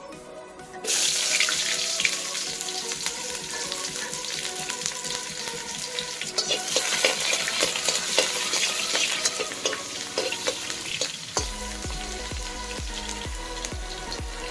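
Food sizzling and crackling in hot oil in a pan, starting suddenly and loudly about a second in, then settling to a steady sizzle. Soft background music plays underneath.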